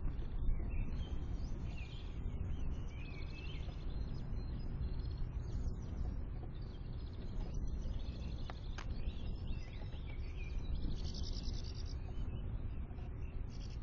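Small songbirds chirping and twittering in short calls, over a steady low background rumble that is the loudest part. Two faint clicks sound a little past halfway.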